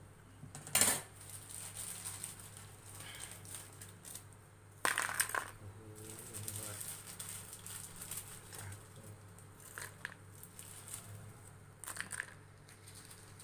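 Crisp rustling and clattering in a few short bursts, loudest about a second in and about five seconds in, as crispy fried pieces are dropped into a plastic bowl of papaya salad.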